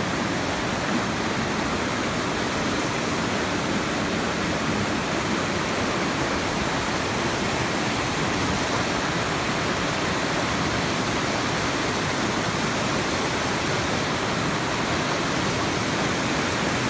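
Waterfall roaring: a steady, unbroken rush of falling water.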